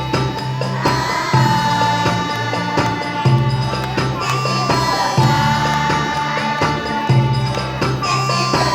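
Music with a steady beat and percussion: a low bass figure repeats about every two seconds under a held high note and a melody.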